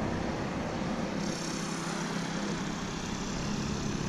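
Steady outdoor background noise with a low, distant engine drone; no distinct events stand out.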